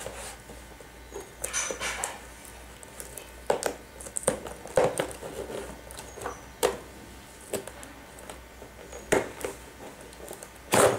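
Cardboard toy box being opened by hand: scattered short scrapes, taps and rustles as the lid flap is worked loose, with one louder knock near the end.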